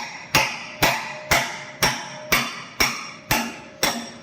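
Hammer blows on steel, eight even strikes about twice a second, each ringing, driving out a worn rear leaf-spring pin.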